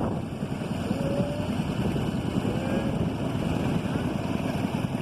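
Motorboat engine running steadily underway, mixed with wind buffeting the microphone.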